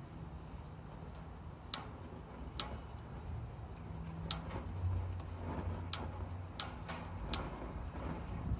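Built-in piezo igniter of an MSR PocketRocket Deluxe canister stove clicking: about six sharp clicks at uneven gaps of roughly a second as it is sparked to light the butane.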